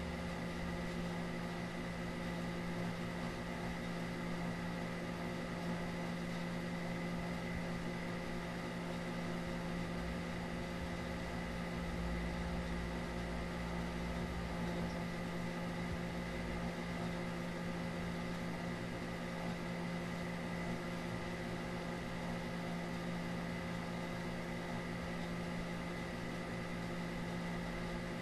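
Steady, unchanging low hum with a hiss underneath: background noise with no speech or music.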